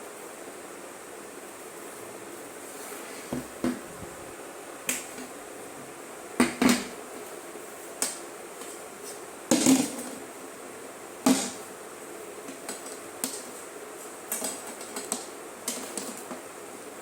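Irregular clicks and knocks of small hard objects being handled, about a dozen, over a steady hiss; the loudest come about six and a half, ten and eleven seconds in.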